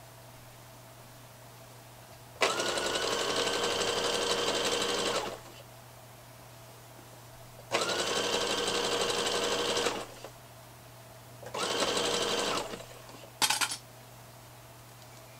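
Electric domestic sewing machine stitching in stop-start runs: one of about three seconds, one of about two seconds, then a one-second run, each starting with a quick rise in speed. A very short burst of stitching comes near the end.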